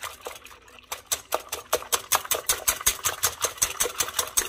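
Wire balloon whisk beating egg whites by hand in a glass bowl: fast, regular clicking of the wires against the glass, about eight to nine strokes a second, with a brief pause just after the start. The whites are at an early, foamy stage of being whipped toward stiff peaks.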